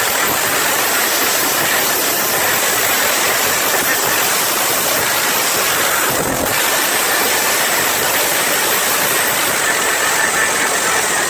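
A large crowd cheering and screaming in one long, loud, unbroken roar, answering a call to make noise.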